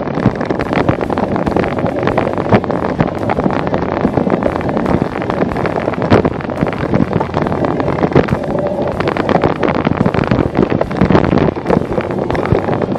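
Wind rushing over the microphone of an on-board camera on a cyclocross bike ridden over rough grass, with rattling and knocks throughout as the bike jolts over the bumpy ground.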